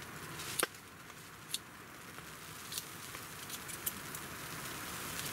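Knife whittling a small piece of wood: a steady high scraping hiss of shaving, with a few sharp clicks as the blade bites.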